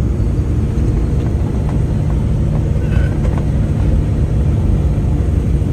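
Steady low rumble of a moving vehicle: engine and road noise while driving along at a constant pace.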